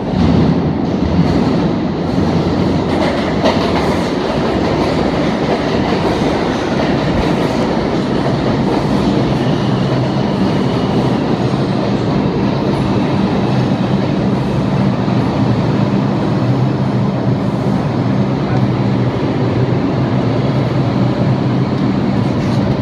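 An R142 subway train arriving at an underground station and running along the platform: a loud, steady rumble of steel wheels on rail with clickety-clack. About halfway through, a low, steady hum from the train joins in as it draws to a stop.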